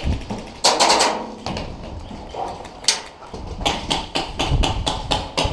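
Airsoft fire: sharp snaps and knocks, with a quick run of about four a second in and more scattered after, over a low rumble.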